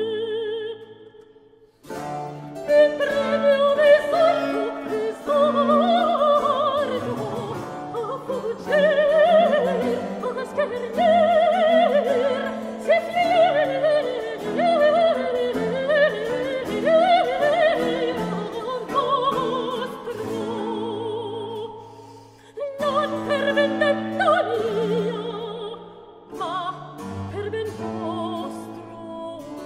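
A soprano sings a 17th-century Italian vocal piece with vibrato over a Baroque continuo of harpsichord, theorbo and Baroque cello. The music pauses briefly near the start and resumes about two seconds in.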